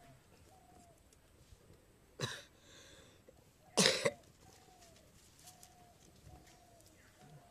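A person coughs twice, a short cough about two seconds in and a louder, longer one near four seconds. A faint short note repeats about once a second in the background.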